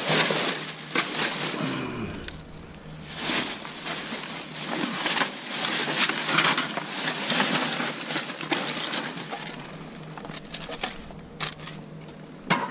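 Plastic rubbish bags rustling and crinkling as gloved hands pull them about in a dumpster, in uneven rushes with scattered sharp clicks and crackles.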